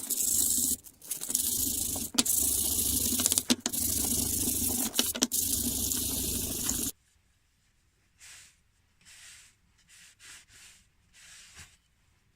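A loud, steady hiss for about seven seconds, broken by a few brief gaps, then about six short, faint rubbing strokes.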